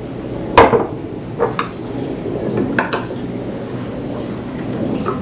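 Several sharp knocks and clinks of tools and wooden parts being handled and set down on a workbench. The loudest comes about half a second in, with smaller ones after it.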